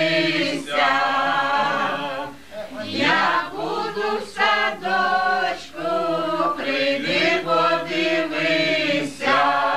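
A group of people singing a song together without accompaniment. They hold long notes in phrases, with short breaks for breath about two and a half and six seconds in.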